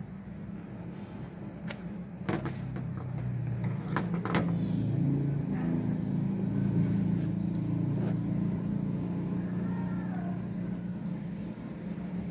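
A motor vehicle engine running with a steady low hum that swells through the middle and eases near the end. A few sharp clicks of handling come in the first few seconds.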